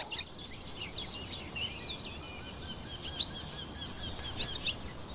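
Swallows chirping and twittering in quick, high, overlapping notes around their nest.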